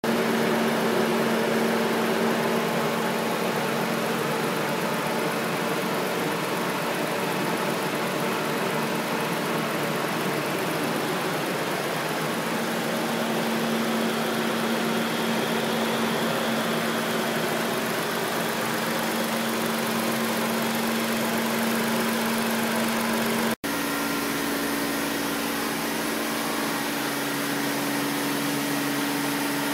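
Car engine idling steadily with a steady hum while it takes in oxy-hydrogen (HHO) gas during a carbon-cleaning treatment. About two-thirds of the way through the sound cuts off abruptly and resumes with the hum a little higher in pitch.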